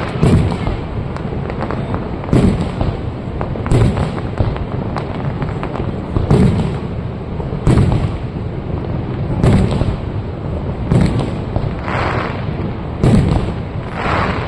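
Aerial firework shells bursting one after another, about ten booms at roughly one-and-a-half-second intervals, each with a short rumbling echo.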